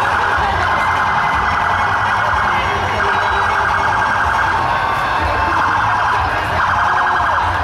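Police vehicle's electronic siren sounding a fast, rapidly pulsing warble, breaking off briefly twice.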